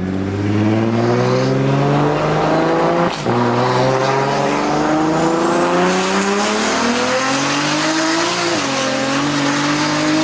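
Single-turbo BMW N54 inline-six with a loud aftermarket exhaust under hard acceleration in a full-throttle pull to check boost. The revs climb steadily, drop sharply at a quick upshift about three seconds in, climb again, and drop at a second shift near the end.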